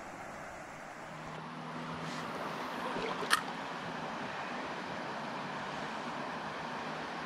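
Steady rushing of a small mountain river's flowing water, a little louder after about a second, with one sharp click about three and a half seconds in.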